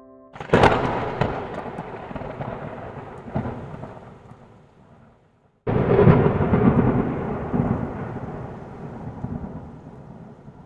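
Two thunderclaps, each starting with a sudden crack and rumbling away over about five seconds.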